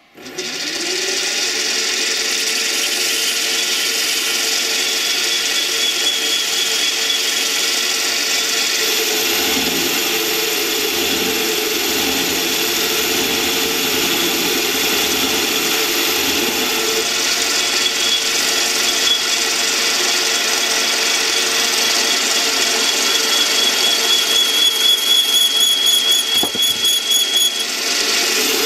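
A South Bend 8K bench lathe starts up, spinning up within the first second, then runs steadily with a whine while a parting tool cuts into the turning workpiece. A few seconds before the end the sound grows louder and pulses rapidly, then settles again.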